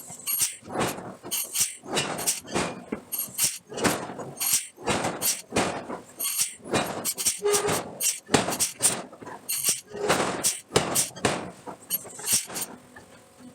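Irregular clanks, knocks and scrapes of steel being handled and worked at a forge, about two or three a second, with short squeaks among them.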